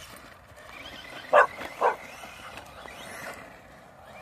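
A dog barks twice, about half a second apart, a little over a second in.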